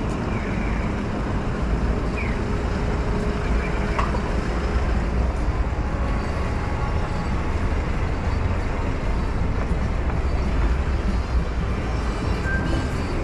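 Steady city street noise dominated by a low rumble of road traffic, with a single faint click about four seconds in.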